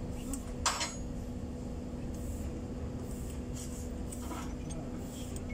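Metal clinks from the rocker arms and valve gear of a Mercedes-Benz Actros truck's diesel cylinder head being handled by hand, one sharp clink less than a second in and a few fainter ones after, over a steady low hum.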